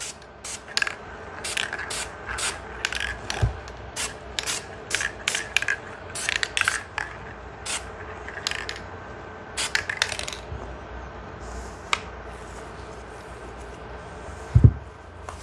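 Aerosol can of green spray paint sprayed in a quick run of short bursts, dusting paint through netting, for about ten seconds, with one last burst a little later. A dull thump near the end.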